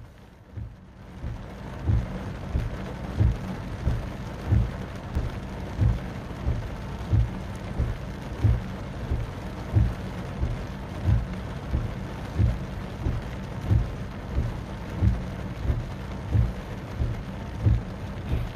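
Hard rain drumming on a car roof, with windscreen wipers sweeping in a steady rhythm: a low thump about every 1.3 seconds. The sound fades in over the first couple of seconds.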